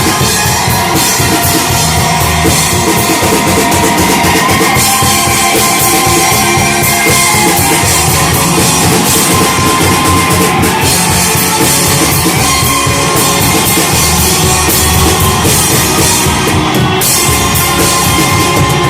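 Shoegaze rock band playing live: a loud, dense, steady wall of sound over a full drum kit.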